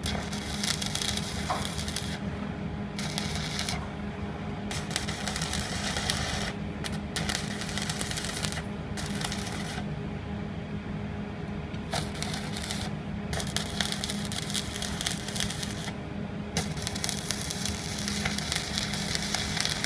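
Stick (arc) welding with an inverter welding machine: the arc crackles and sizzles in runs of one to three seconds, breaking off and restarting several times, over a steady low hum.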